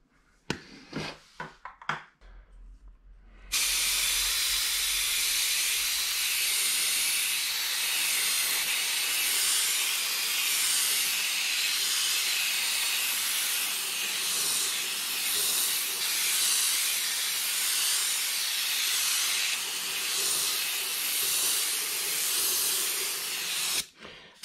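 Airbrush spraying white paint: a steady hiss of air and paint that starts about three and a half seconds in, after a few light handling clicks, and cuts off suddenly near the end.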